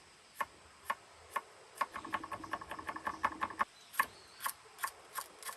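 Knife knocking against a cutting board: single cuts about twice a second, then a quick run of rapid chopping strokes about two seconds in.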